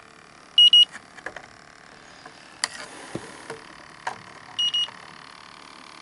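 Electronic refrigerant leak detector sounding short high double beeps twice, about four seconds apart, over a steady hum, with a few light knocks of handling between.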